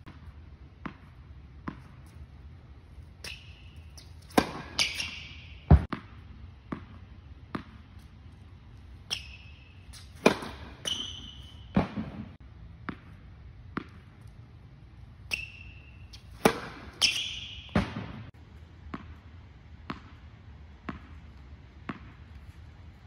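Tennis balls bouncing on a hard indoor court and rackets striking serves: a string of sharp impacts every second or so, ringing in a large echoing hall, with several short high squeaks among them.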